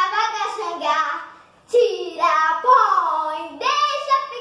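A young girl singing a song unaccompanied, in a high child's voice, with a short break about a second and a half in before she starts the next line.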